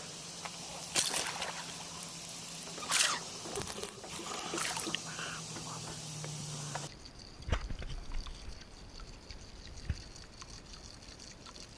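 Water splashing and sloshing in short bursts, the two strongest about one and three seconds in, over a steady low hum; the sound changes abruptly about seven seconds in to a quieter background with a few knocks.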